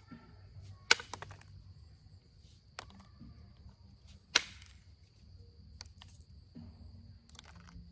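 Chert being pressure-flaked with an Ishi stick: sharp clicks as small flakes snap off the stone. Two loud ones come about a second in and about four seconds in, with a few lighter clicks between and near the end.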